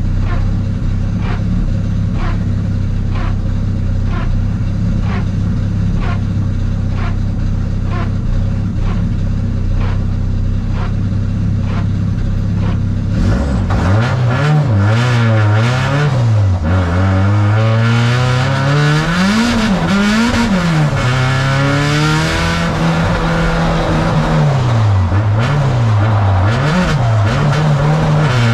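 Nissan 180SX drift car engine idling steadily with a regular click a little over once a second. About halfway through it takes off, revving hard and rising and falling in pitch again and again as the car drifts on a wet track.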